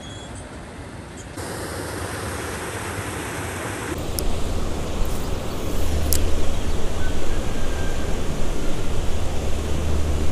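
Steady rush of flowing creek water with wind rumbling on the microphone, growing louder about four seconds in; a couple of faint clicks near the middle.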